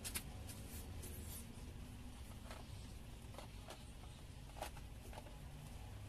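Faint workbench handling noise: a sheet of paper rustling and several soft ticks and taps of small parts being moved, over a low steady hum.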